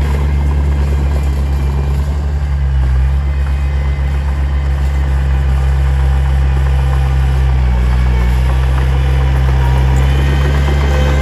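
Heavy diesel engine of earthmoving equipment, a bulldozer or dump truck, running steadily at a low, even pitch.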